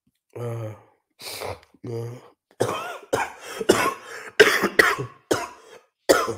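A man coughing in a long fit of about a dozen harsh coughs, the first few with a throat-clearing rasp, coming faster and louder around the middle.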